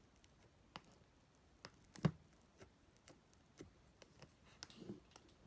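Scattered faint clicks and taps at an irregular pace in a small, quiet room, with one louder knock with a dull thud about two seconds in.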